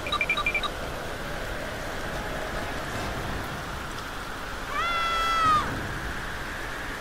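Calls of young animals: a quick run of six or so short chirps at the start, then about five seconds in a single long high call that holds and drops away at its end, over a steady hiss.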